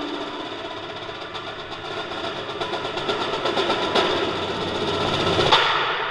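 An indoor percussion ensemble playing a dense rolling build over held pitched tones. It grows louder to a big accent about five and a half seconds in, then dies away.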